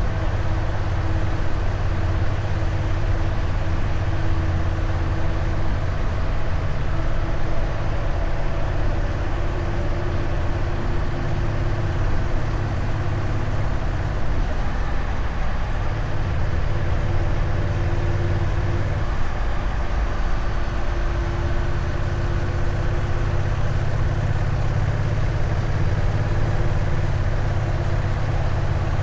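Honda Rebel 1100 DCT's parallel-twin engine running steadily through its stock exhaust while riding at a constant cruise-control speed of about 60 km/h.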